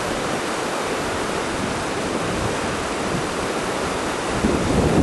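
Steady rush of a mountain river flowing beneath a footbridge, with wind buffeting the microphone in low gusts near the end.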